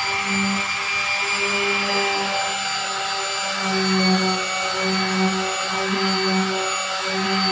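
Electric orbital sander running steadily with a motor whine, sanding body filler on a car door panel.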